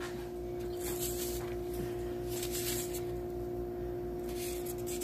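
A steady low hum with a higher overtone, with faint brief rustles three times as shredded cheese is spread by hand over mini pizzas on a foam plate.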